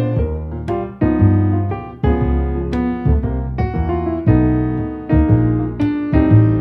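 Background piano music: a steady run of struck notes over low bass notes.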